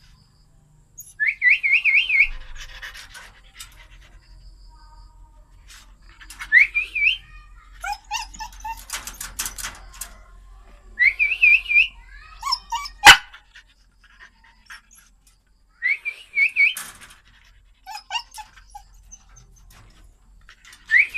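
Caged dog whining and yelping in high-pitched, wavering bursts about every five seconds, with shorter, lower calls in between. A sharp knock about thirteen seconds in is the loudest sound.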